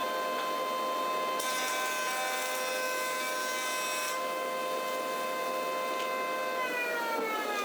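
Surface planer running with a steady whine while a wide beech board is pushed across the cutterhead, the cut adding a hiss for about three seconds. Near the end the whine falls in pitch as the machine is switched off and winds down.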